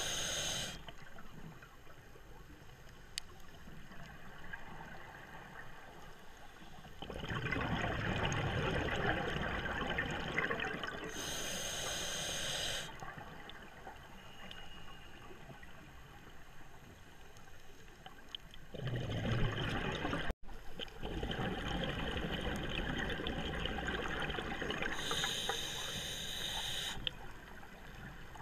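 Scuba diver breathing through a regulator, heard underwater: slow breaths, each a long bubbling rush of exhaled air with a brief hiss from the regulator on the inhale, repeating about every 13 seconds.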